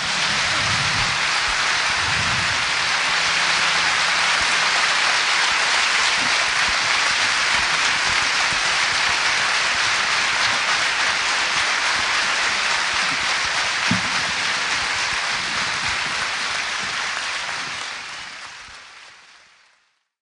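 Steady rain, an even hiss of falling drops that fades out near the end.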